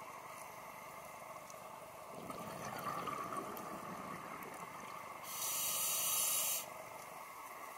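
Scuba diver's regulator breathing underwater: a stretch of exhaled bubbles gurgling from about two seconds in, then a sharp hissing inhale just after five seconds that lasts over a second.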